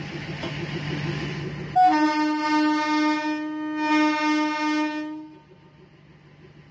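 Train horn sounding one long steady blast, starting about two seconds in and stopping a little after five seconds, over a low rumble of the train.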